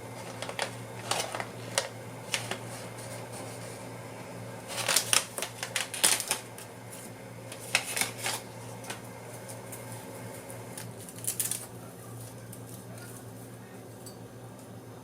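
Light clicks and clinks of cups and tableware being handled while tea is made, with a cluster of sharper taps about five seconds in and a few more later, over a low steady hum.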